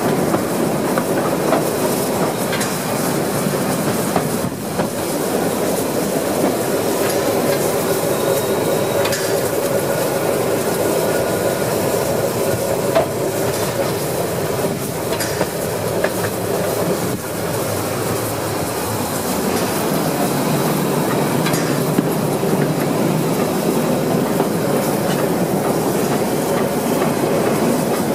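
Harz narrow-gauge steam train behind 2-10-2 tank locomotive 99 236 running steadily along the line, a continuous rumble of the train with wheels clicking over the rail joints.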